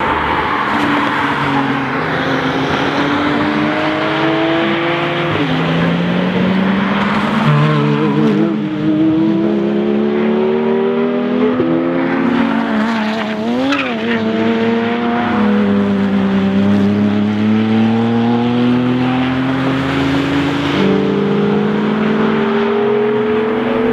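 Porsche race and sports cars accelerating hard one after another, engine notes climbing steadily in pitch with sudden drops at each upshift. Two or more engines overlap at times.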